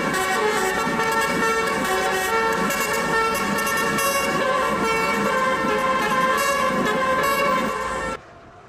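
Multi-tone telolet horn sounding a continuous chord of several notes that shift in short steps, over a vehicle engine; it cuts off abruptly about eight seconds in.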